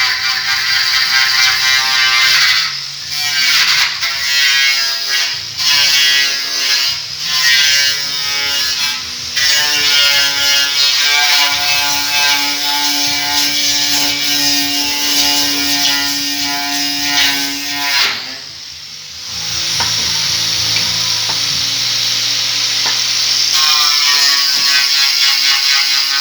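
Pneumatic impact wrench running in repeated bursts as it drives a clamp and a large socket to press silent-block bushings into a BMW E34's rear subframe. The motor's whine shifts in pitch over a fast hammering, and there is a short pause about two-thirds of the way through.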